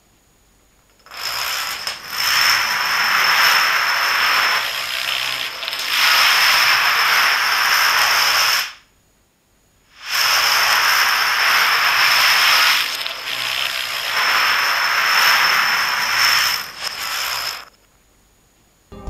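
Thousands of dominoes toppling row after row in a large domino field: a dense, continuous clatter lasting about seven and a half seconds. After a pause of about a second, the same toppling clatter runs again for about as long.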